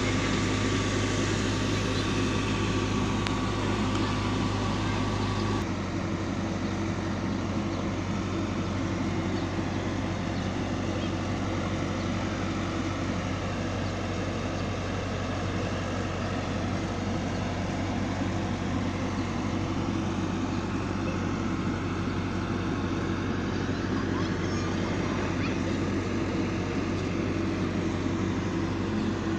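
Engine of heavy road-repair machinery running steadily; its note changes abruptly about six seconds in.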